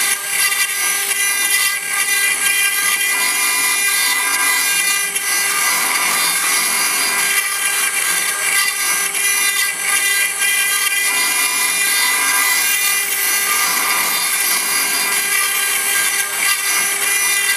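4-axis CNC router's spindle running and its cutting bit grinding into stone: a steady high whine over a dense gritty noise.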